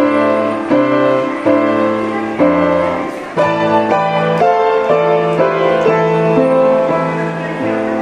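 Slow piano music: chords struck about every three-quarters of a second, each fading away, then longer held chords from about three seconds in.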